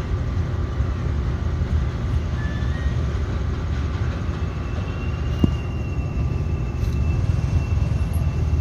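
Steady low rumbling background noise, with a faint thin high whine in the second half and one small click about five and a half seconds in.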